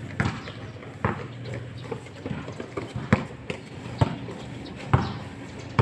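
Basketball being dribbled on a painted concrete court: sharp single bounces at a steady pace of about one a second.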